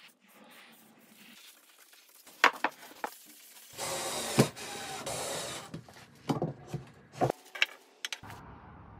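Cordless drill driving a screw into a wooden wall cleat for about two seconds, a little under halfway in. It is followed by a few wooden knocks and clicks as the shelf box is handled against the wall.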